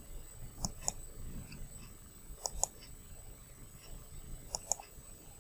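Computer mouse button clicks in three quick pairs, about two seconds apart, over a faint background hiss.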